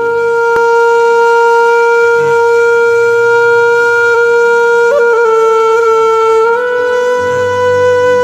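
Background music: one long held note on a wind instrument, shifting pitch slightly about five seconds in and again a little later, over a low steady drone.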